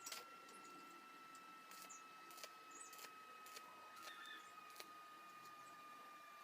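Near silence: faint room tone with a thin steady high whine and a few scattered faint ticks.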